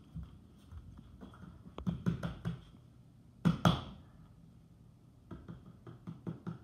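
Irregular light taps and knocks on a hard floor in small clusters, the loudest a short burst about three and a half seconds in.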